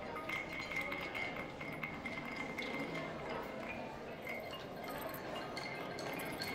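Experimental sound performance with metal bowls and small found objects: scattered light metallic clinks over a high, steady ringing tone.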